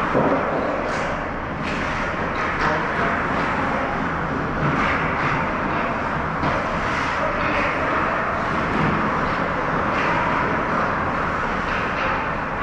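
Ice hockey game on the ice: a steady rushing din of skating and rink noise, broken by scattered sharp clacks of sticks and puck.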